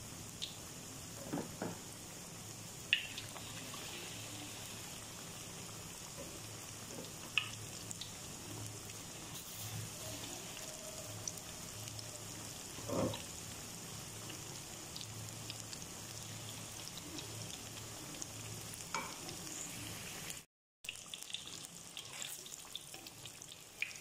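Battered banana fritters deep-frying in hot oil in a wok: a steady sizzle with a few scattered pops.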